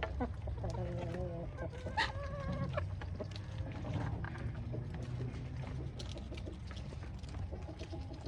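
Chickens clucking, with several short calls in the first few seconds, over many quick small ticks and taps and a steady low rumble.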